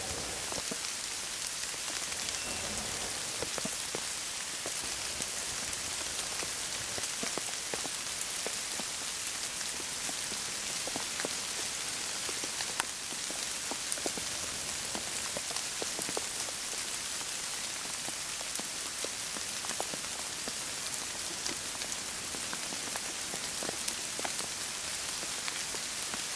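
Steady rain falling on wet bush foliage and leaf litter: an even hiss with scattered small drip ticks.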